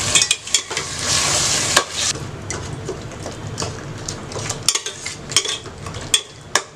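A spoon stirring a frying masala gravy with yogurt in a pan: the gravy sizzles, loudest for the first two seconds, while the spoon scrapes and clicks against the pan many times.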